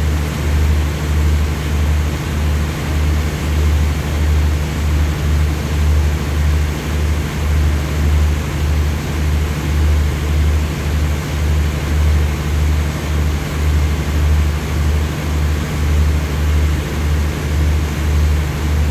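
Stationary diesel train idling at the platform: a steady deep engine hum that pulses about twice a second.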